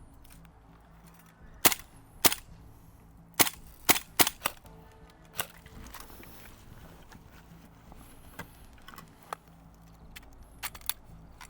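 Gas blowback airsoft rifles firing single shots, sharp cracks at irregular spacing. A cluster of about six loud shots comes between two and five seconds in, then scattered fainter shots later on.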